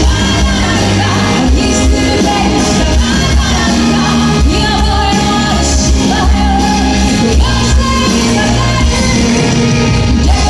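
Live pop-rock band playing loudly in a large concert hall, with a singer's voice over the band.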